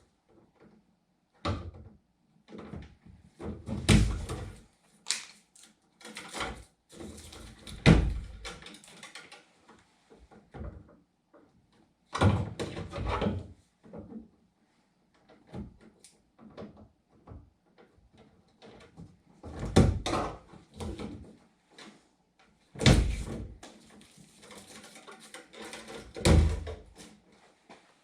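Irregular knocks, clunks and heavy thumps in a small room, with short clattering and rustling between them. The loudest thumps come every few seconds.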